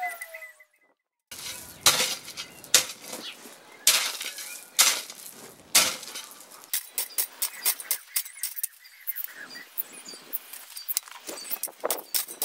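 Metal spade blade digging and scraping into stony, gravelly soil: sharp chinks and knocks of steel on stones, with several heavier strokes in the first half and quicker, lighter scrapes after.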